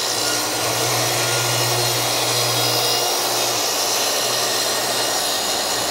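Plunge-cut track saw running steadily as it is pushed along its guide rail, trimming a strip of about an eighth of an inch off the edge of a Baltic birch plywood sheet to square it.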